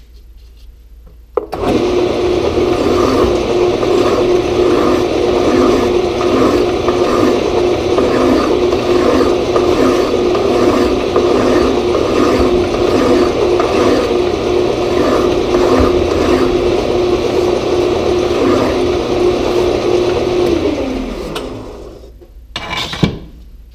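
Grizzly G0602 bench lathe running with its spindle turning a metal workpiece while a hand file is held against the spinning part to break the edge. The lathe starts about a second and a half in, runs steadily, then winds down near the end, followed by a single short clunk.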